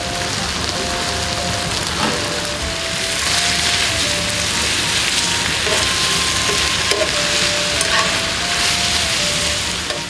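Gochujang-marinated duck and vegetables sizzling steadily on a hot griddle pan, turned with metal tongs with a few light clicks. Faint background music plays underneath.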